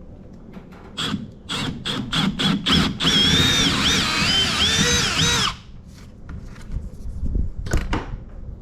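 Power drill: several quick trigger bursts, then about two and a half seconds of steady drilling with the motor's whine wavering in pitch under load, cut off suddenly, and one more short burst near the end. It is drilling bolt holes through a jon boat's transom.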